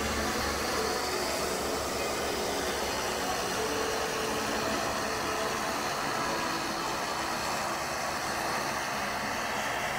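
A steady engine drone heard at a distance, blended into an even rush of outdoor noise.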